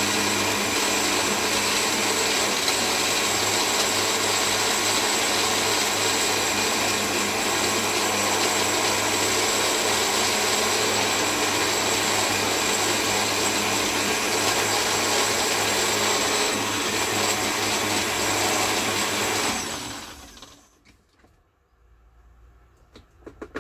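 Countertop blender motor running steadily at speed, blending a thick beetroot, banana and pineapple smoothie to work out the lumps. It is switched off about 20 seconds in and winds down, followed by a few light clicks near the end.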